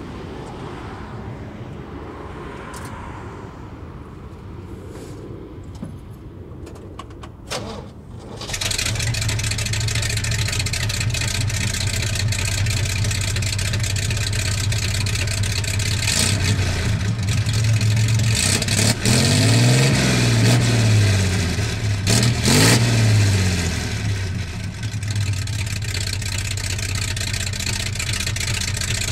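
The Jeep's Buick 225 Dauntless V6 through a new dual straight-pipe exhaust: it starts about a third of the way in and settles into a loud, steady idle. A little past the middle it is revved twice, the pitch rising and falling each time, then it idles again.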